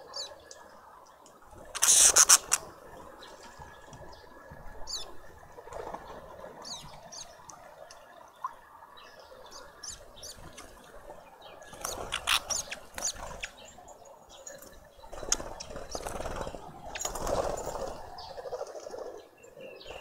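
Small wild birds chirping and calling at a garden seed feeder, with a loud clattering burst about two seconds in and further louder flurries of noise near the middle and toward the end.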